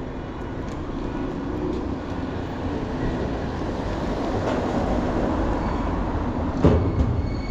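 Rumble of passing heavy traffic that swells over the first few seconds, with a sharp knock near the end.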